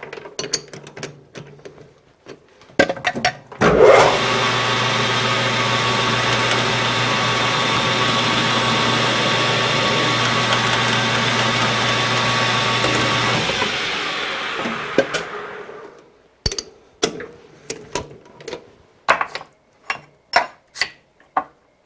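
A 12x36 metal lathe starts about four seconds in and runs steadily for about ten seconds while a center drill spot-drills the part in its chuck, then is switched off and spins down. Before and after the run there are metallic clicks and clanks as the part is fitted into and taken out of the three-jaw chuck.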